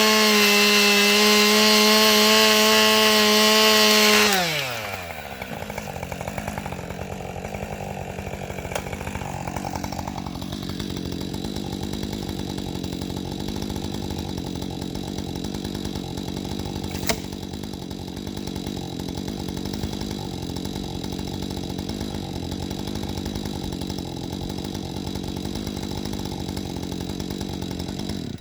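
Husqvarna 545 Mark II two-stroke chainsaw held at full throttle for about four seconds, then dropping off to a steady idle for the rest of the time. A single sharp click comes about two-thirds of the way through.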